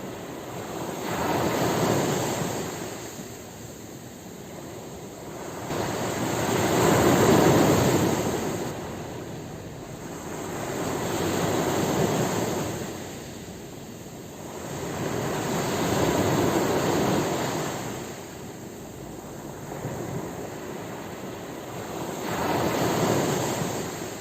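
Ocean waves washing onto a shore, the surf swelling and fading in slow surges about every four to five seconds.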